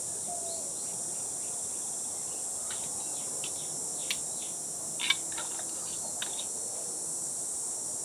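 Steady, high-pitched insect chorus, with a few light clicks about halfway through.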